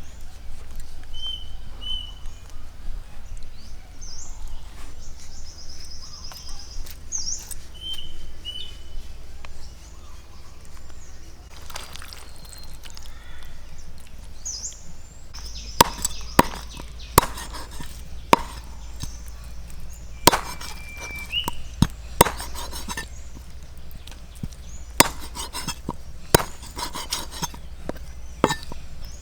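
A knife chopping on a wooden cutting board: sharp, irregular strikes begin about halfway through and continue to the end. Birds chirp in the quieter first half.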